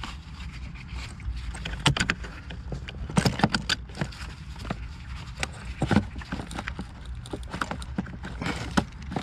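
Scattered clicks and knocks of a fuel hose and its plastic connector being worked into place on a diesel fuel filter, over a steady low rumble.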